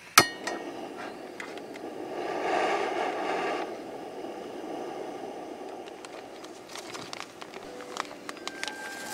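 A sharp metallic click as a single-burner camping gas stove is lit under a cast iron skillet, then the rush of the burner, louder for a second or two before settling to a steady hiss. Near the end, a plastic food packet crinkles as it is torn open.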